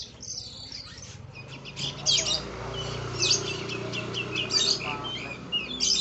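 Caged Oriental magpie-robin (kacer) singing a fast, varied song of chirps, whistles and short trills, packed with songs mimicked from other birds. The song grows louder and busier about two seconds in.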